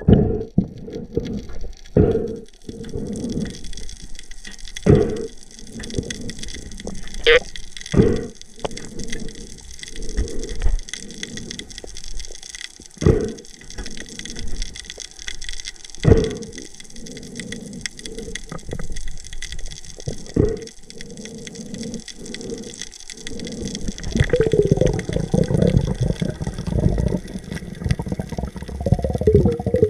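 Sea water sloshing and bubbling, heavily muffled, with sudden louder surges every two or three seconds and a busier churning near the end.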